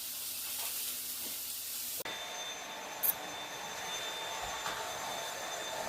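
Steady background hiss that changes character abruptly about two seconds in, then carries faint steady whining tones, with a brief click about three seconds in.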